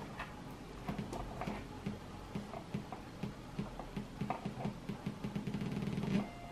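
Clicks and crackles from a DIY 40106 Schmitt-trigger oscillator module as its jacks and knobs are handled, with a low buzzy oscillator tone cutting in and out and then holding steady for about a second near the end. A steady mains hum runs underneath.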